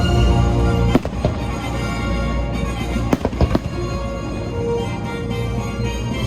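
Fireworks going off in sharp bangs, a couple about a second in and a quick cluster around three seconds in, over the show's music soundtrack.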